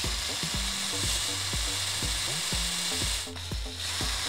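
Cordless drill boring a 5/16-inch hole into wood with a steady whir, which eases off briefly a little past three seconds.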